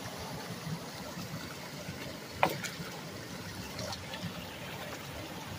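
Water trickling and running through a partly clogged culvert, with splashing as beaver-dam sticks and mud are pulled out by gloved hands. One sharp knock about two and a half seconds in.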